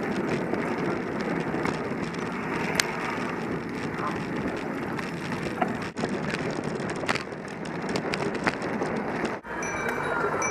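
Rolling noise and rattle of a bicycle on tarmac, heard through a camera mounted low on the bike, with scattered small knocks; it breaks off briefly twice. Near the end a repeating high beeping starts.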